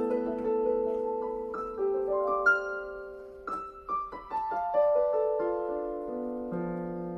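Piano playing a slow melody with held, overlapping notes and a brief run of quicker notes in the middle.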